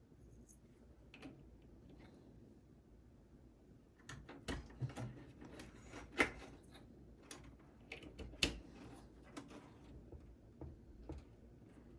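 Scattered light clicks and knocks of a SATA power splitter cable and its connectors being handled and fitted inside a desktop PC case, most of them in a busy spell in the middle.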